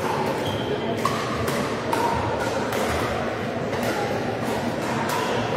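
Pickleball paddles hitting plastic pickleballs: several sharp pops at irregular intervals, echoing in a large indoor hall over a steady background din.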